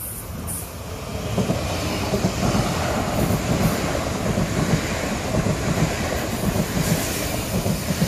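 KTX-Eum high-speed electric multiple unit passing close by: a rush of wheel-on-rail and running noise that swells over the first second or so, then holds steady, with a rapid, irregular low pulsing from the wheels on the track.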